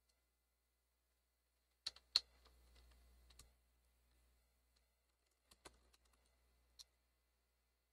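Small sharp clicks of a screwdriver and screws being worked out of an IBM ThinkPad R52 laptop's plastic case: a loud pair about two seconds in, a few more later, with faint handling noise between them.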